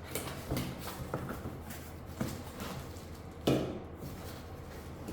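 Stainless steel mixer-grinder jars being handled: a few light knocks and clatters, with one louder knock about three and a half seconds in.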